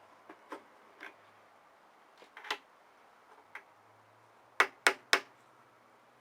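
Light metal clicks and taps as a machine vise is opened by hand, then three sharp knocks in quick succession near the end.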